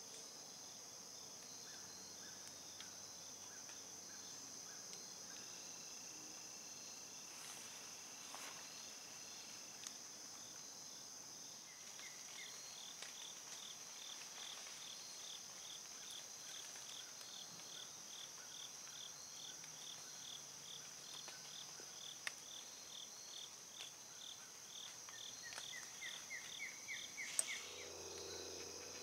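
Crickets and other insects calling in the woods: a steady high trill, joined about halfway through by a slower pulsed chirp at about two a second. A short run of rising notes and a few faint clicks come near the end.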